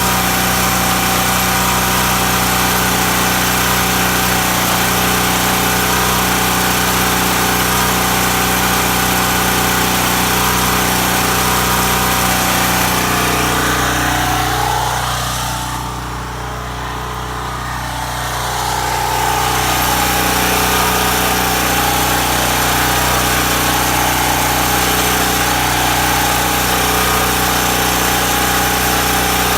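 Champion portable generator's engine running steadily under load during a load test, a constant drone with several even tones. About halfway through it grows quieter and duller for a few seconds, then comes back to its full level.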